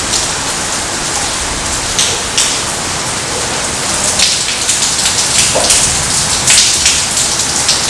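Heavy thunderstorm rain falling steadily, a dense even hiss with many sharp ticks of drops landing close by.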